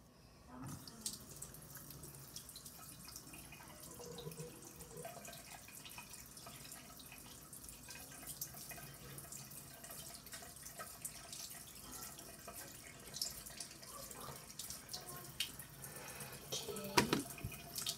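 Bathroom sink tap running, starting about a second in, with small clicks and knocks over the water and one sharper knock near the end.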